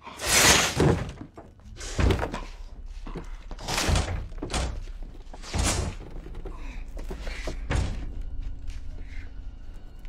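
A giant snake striking again and again, as film sound effects: a series of heavy, echoing thuds and slams a second or two apart, the loudest near the start and weaker toward the end.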